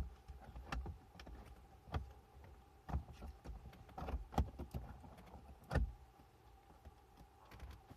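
Scattered clicks and knocks of plastic interior car trim being handled and pushed into place, the loudest knock about three-quarters of the way through.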